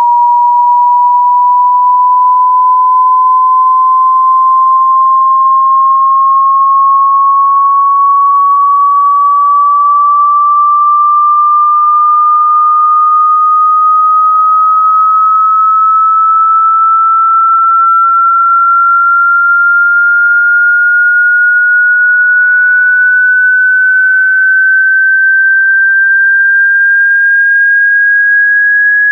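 A loud, pure sine test tone gliding slowly and evenly upward in pitch, part of a hearing-test frequency sweep.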